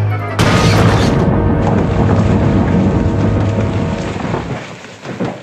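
A loud rumbling crash with music under it: the mine starting to cave in. It starts suddenly about half a second in and fades away over the last second or so.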